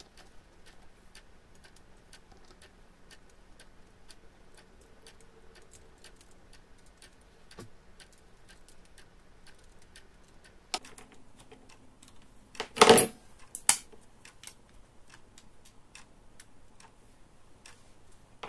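Light clicks and taps of metal tweezers on the small plastic gears and housing of a quartz clock movement while its gear train is fitted back together. There is a louder clatter of a few knocks about two-thirds of the way through.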